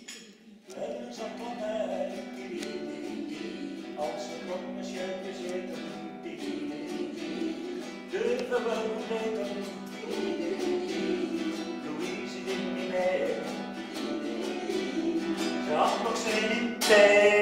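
A man singing with his own strummed nylon-string classical guitar accompaniment, the voice swelling louder near the end.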